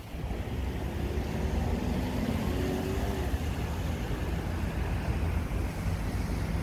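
Street traffic: cars driving past on a wet road, with a low wind rumble on the microphone.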